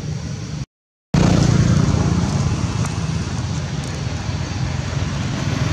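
Steady low rumble of motor traffic, cut to silence for about half a second just under a second in, then louder.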